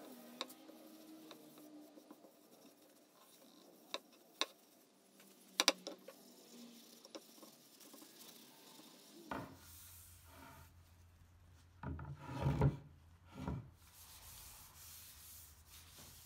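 Paper towel rubbing beeswax polish into a hardwood board, quiet wiping strokes across the wood. A few sharp clicks come early in the middle, and some louder handling sounds about three-quarters of the way through.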